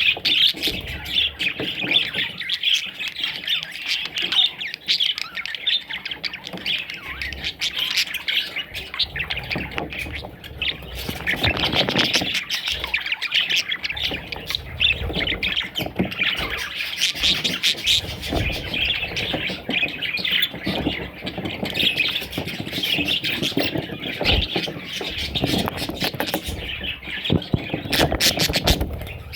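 A flock of budgerigars chattering and squawking, many short calls overlapping without a break.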